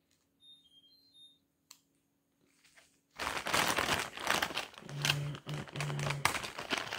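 Clear plastic zip bag crinkling and rustling as a hand rummages through the knives inside it, starting suddenly about three seconds in, with many small crackles.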